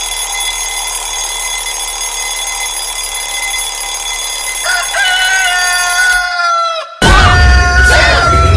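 Rooster-crow alarm tone: a steady held electronic tone with a rooster crowing over it about five seconds in, falling in pitch. After a brief break, a louder rooster crow with clucking starts near the end.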